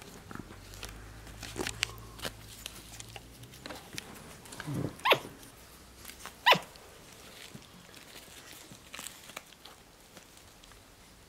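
Black-capped capuchin monkeys giving short high calls that sweep in pitch, the two loudest about five and six and a half seconds in, among faint rustling and small clicks.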